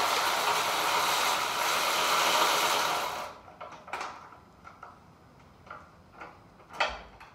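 Cordless drill running steadily for about three seconds, spinning a spark plug out of a mower engine through a long socket extension, then stopping. A few light clicks follow.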